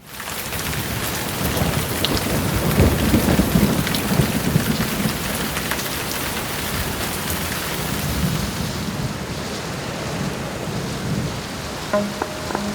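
Heavy rain pelting down in a thunderstorm, with a low rolling rumble of thunder a few seconds in. A steady low tone comes in near the end.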